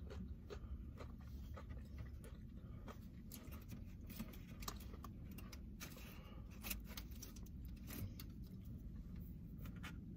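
Faint scattered clicks and light handling noises as catfish sliders are picked up and bitten into, over a low steady rumble.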